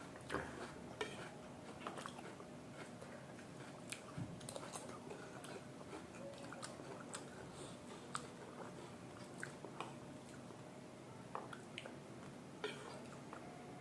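Close-miked chewing and biting of chowmein noodles and momo dumplings: faint, soft wet mouth clicks and smacks at irregular intervals.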